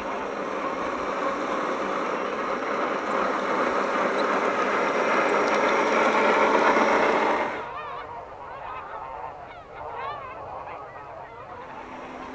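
A dense chorus of many birds calling at once, growing louder, then cut off sharply about seven and a half seconds in, leaving scattered short rising-and-falling calls.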